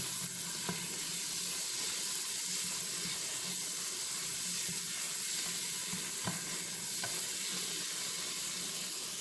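Mutton pieces in soy sauce sizzling steadily as they dry-fry in an electric pressure cooker's pot on stir-fry mode, cooking down until dry, with a few light clicks of a stirring spoon against the pot.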